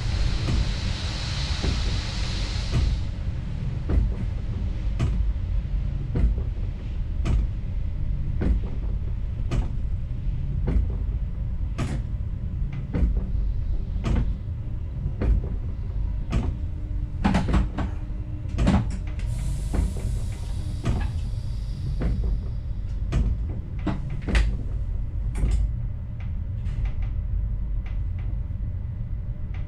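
Train driver's cab in motion: a steady low rumble with a run of sharp clicks and knocks, about one a second. A broad hiss fades out about three seconds in, and a shorter, higher hiss comes about twenty seconds in.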